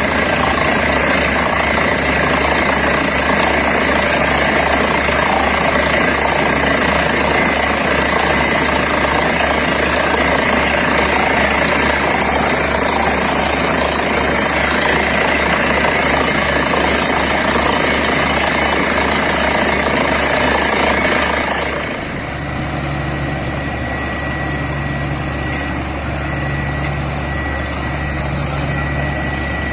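Borewell drilling rig running loud and steady, with a dense rush of machinery and air noise. About three-quarters of the way through it drops back to a quieter, steadier engine run with a low hum that pulses every couple of seconds.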